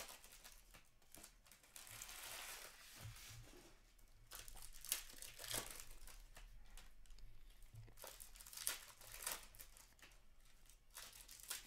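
Faint, irregular crinkling of Upper Deck hockey card pack wrappers, with the rustle and flick of cards being pulled out and thumbed through by hand.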